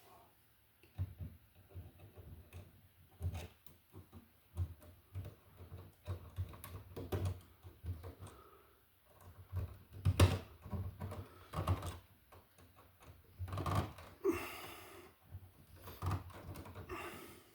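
Irregular clicks, taps and light knocks of hands and tools working the wires at an electrical box, with a sharper knock about ten seconds in.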